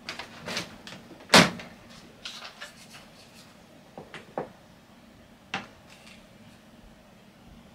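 A string of sharp knocks and clatters from objects being handled at a work desk and metal shelf, the loudest about a second and a half in, with a few lighter clicks after it and a faint steady hum underneath.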